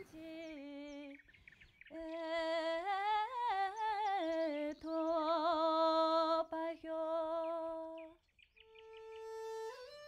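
Music: a wordless sung or hummed melody of long held notes with a slight waver, broken by short pauses. Near the end a steady held note rises into the next phrase, leading into flute music.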